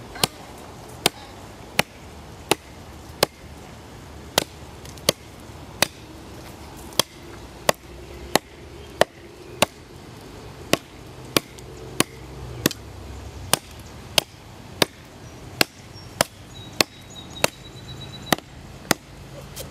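Gossman 9-inch Tusker chopper knife chopping into a small tree trunk near its base, a sharp, even chunk of blade into green wood about every two-thirds of a second.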